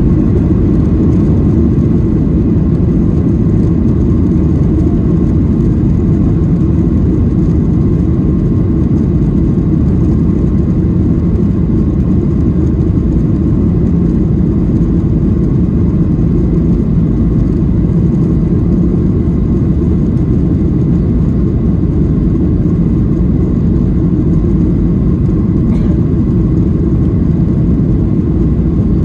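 Boeing 737-800 cabin noise: a steady low rumble of its CFM56 jet engines and airflow, with a faint thin steady whine above it.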